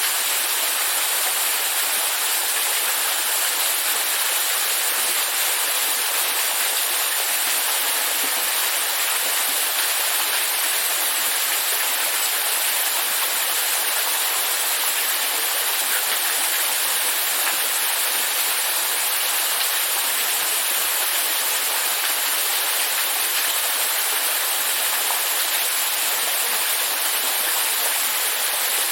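Steady rushing of running water, even and unbroken, with no separate splashes or drops standing out.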